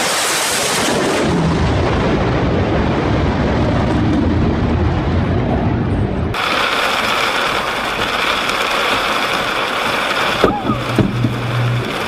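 Fighter jet passing low overhead: a loud jet roar, its hiss sharpest in the first second and settling into a deep rumble. About six seconds in it cuts abruptly to a different steady rushing noise with a high ringing edge.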